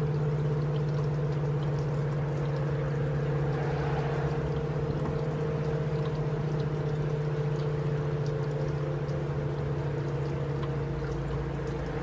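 ACA P-50 electromechanical outdoor warning siren sounding its one-minute alert: a steady, unwavering tone held at constant pitch.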